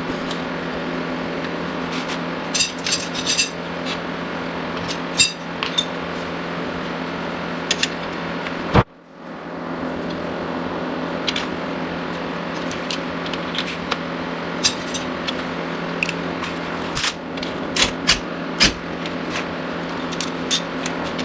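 Steady mechanical hum with scattered metallic clicks and clinks of hand tools on the car's suspension parts, growing denser near the end. The sound cuts out briefly about nine seconds in.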